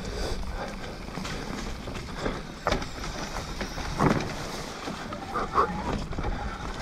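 Mountain bike being ridden along a dirt trail: tyre and wind noise on the microphone, with irregular knocks and rattles from the bike over bumps, the loudest about 4 s in, and a brief pitched sound a little after 5 s.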